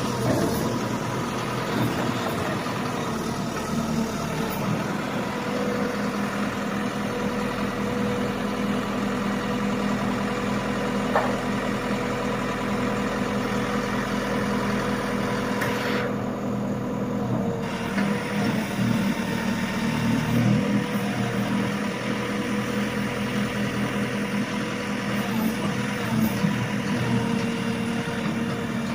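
Backhoe loader's diesel engine running steadily, a continuous mechanical drone.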